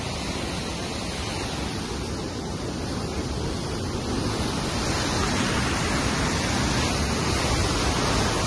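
The South Fork Stillaguamish River in record flood, white water rushing through a rocky gorge: a steady roar, a little louder from about halfway through.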